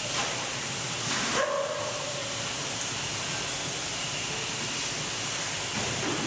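Steady rush of water circulating in a koi pond, with splashing near the start and again about a second in as a large plastic tub is dipped into the water, and a short high whine just after the second splash.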